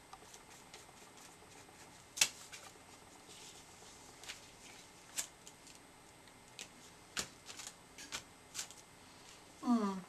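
Scattered light taps and paper crinkles as card stock, paper and a foam stamp are handled on a paper-covered table, the sharpest tap about two seconds in.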